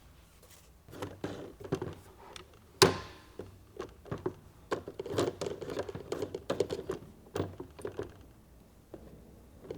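Oiled cloth patch being wiped over a side-by-side shotgun's metal: scratchy rubbing strokes and light handling knocks, with one sharp knock about three seconds in.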